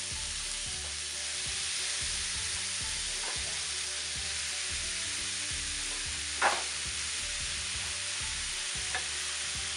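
Spaghetti squash strands, butter and garlic sizzling steadily in a hot non-stick frying pan, with a brief knock about six and a half seconds in.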